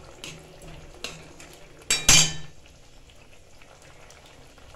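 Wooden spatula stirring thick, simmering curry in an aluminium kadai, with a few light scrapes. About two seconds in come two sharp knocks against the pan, with a brief metallic ring.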